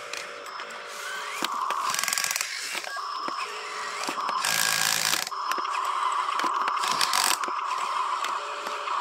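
Huina RC dump truck's small electric motor and gearbox whirring in spurts as it is worked, with fine ticking. A short burst of rough, scraping noise comes about halfway through.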